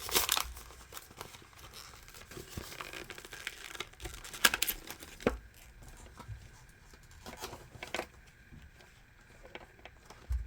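Packaging being handled: crinkling and tearing, with several sharp rustles, loudest near the start and about four and a half seconds in, quieter toward the end.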